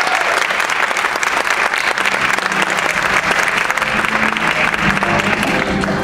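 Audience applauding steadily, with a few held low instrument notes coming in underneath about two seconds in.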